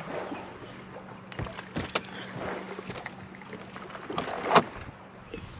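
Knocks and rattles of gear being handled on a fishing boat, loudest as one sharp knock about four and a half seconds in, over a faint steady hum.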